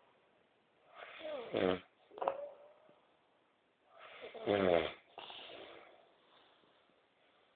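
A man snoring in his sleep: two long snores about three seconds apart, the second the louder and trailing off in a breathy exhale, with a short snort between them.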